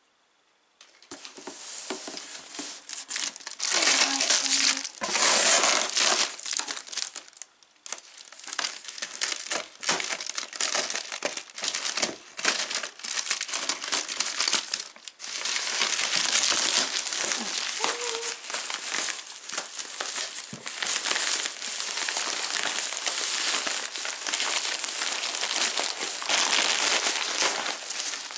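Plastic wrapping and packing paper crinkling and rustling continuously as packing material is handled and pulled out of a cardboard box, starting about a second in.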